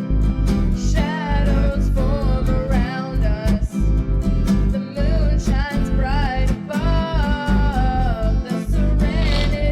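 Music: a wavering sung melody over guitar, a deep bass and a steady beat.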